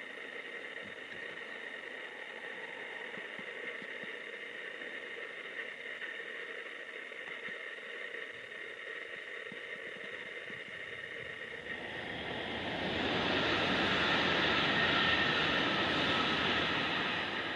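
Hello Kitty Shinkansen, a 500-series bullet train, passing at speed: a rushing roar of wheels and air that builds about two-thirds of the way in, holds for a few seconds and begins to fade near the end. Before it arrives there is only a steady faint background hum.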